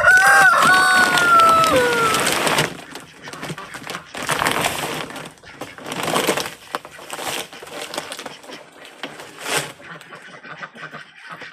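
A rooster crows once: a long, held call that falls in pitch at the end, over the first two and a half seconds. Several short, noisy rustling bursts follow.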